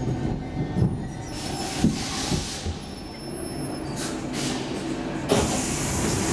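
Stockholm Metro C14 car standing at an underground platform: a steady low hum from the train with station noise around it, and a sudden louder noise that starts about five seconds in and carries on.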